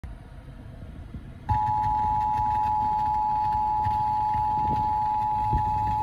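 Emergency Alert System two-tone attention signal (853 Hz and 960 Hz sounded together), a steady, unbroken dual tone that cuts in abruptly about a second and a half in, heard through a car's FM radio speakers over a low cabin rumble.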